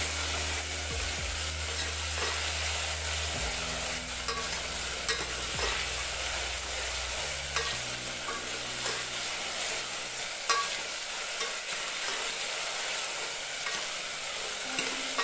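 Diced ridge gourd frying in oil in a metal pot, a steady sizzle, while a metal ladle stirs it with scattered clinks and scrapes against the pot, the sharpest about ten and a half seconds in.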